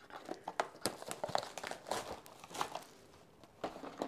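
Paper leaflets and a cardboard box being handled, a run of crisp crinkles and rustles that stops for a moment about three seconds in, then resumes briefly.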